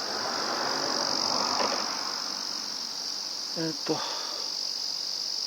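A steady, high-pitched drone of insects, with a soft rustle in the first two seconds and a short voice sound about four seconds in.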